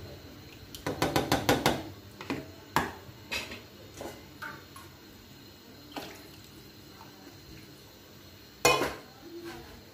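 Spatula knocking and tapping against a karahi: a quick run of about half a dozen taps about a second in, then scattered single knocks and a louder clatter near the end.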